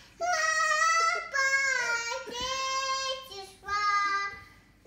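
A toddler girl singing into a handheld microphone in three long, drawn-out phrases, the last one lower in pitch.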